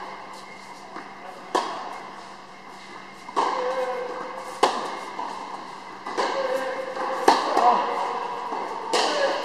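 A tennis rally on an indoor hard court: sharp pops of the ball struck by rackets and bouncing, about one to two seconds apart, each ringing briefly in the hall.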